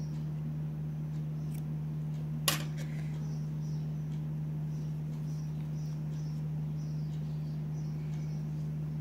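Steady low hum with faint, short high-pitched chirps recurring about twice a second, and one sharp click about two and a half seconds in.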